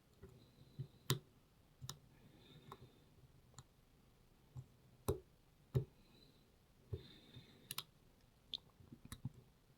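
Faint, irregular metallic clicks and brief light scraping from a lock pick and tension wrench working the pins of a small four-pin cabinet lock, with the core turned anti-clockwise.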